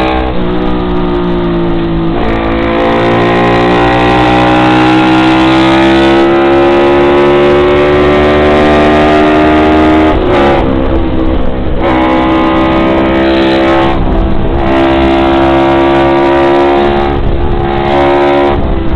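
Honda CB350 parallel-twin engine of a Drixton 350 MkII road racer under hard throttle, heard from on board. Its pitch climbs steadily over long pulls, dips sharply about two seconds in, around ten seconds in and several times after, and climbs again each time as it changes gear or eases off for a corner.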